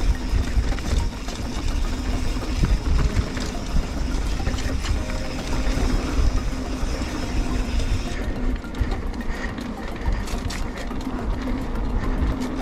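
Mountain bike descending singletrack: wind buffets the microphone in a heavy, uneven rumble, with tyre and trail noise. From about two-thirds of the way in there are frequent sharp clicks and rattles as the bike runs over rough ground.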